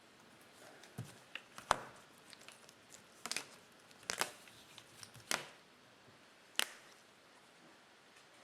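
Trading cards being handled and sorted by hand: scattered light taps, clicks and rustles at uneven intervals.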